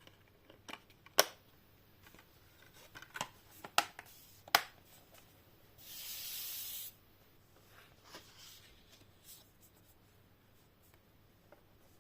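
Handling of a metal steelbook disc case and its packaging: several sharp clicks and taps in the first five seconds, then a rubbing hiss lasting about a second, about six seconds in, followed by a few faint ticks.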